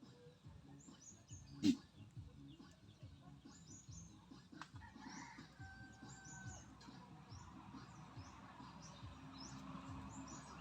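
Farmyard birds, chickens among them, chirping over and over in short high calls, with one sharp knock just under two seconds in.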